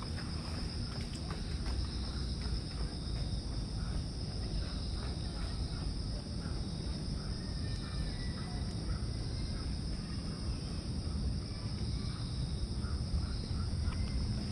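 Outdoor summer ambience: a steady high-pitched insect drone, with scattered faint bird chirps over a low steady rumble.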